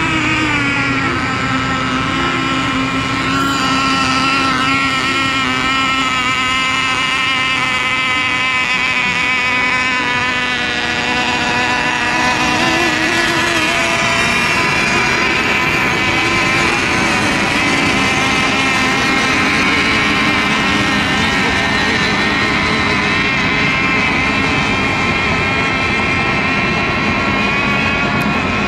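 Several radio-controlled racing boats running at speed together, their engines making a steady high-pitched whine of overlapping pitches that drift slightly up and down.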